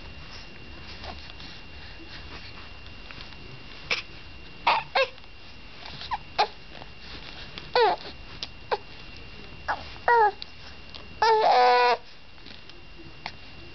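Baby cooing and squealing: a string of short, high calls, most falling in pitch, then a longer, louder squeal near the end.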